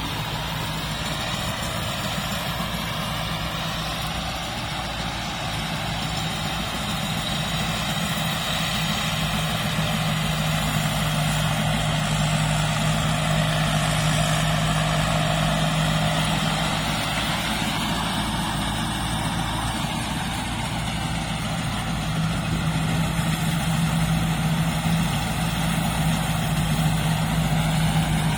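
Heavy diesel engine of a rice combine harvester running steadily, its note swelling and easing slightly a few times.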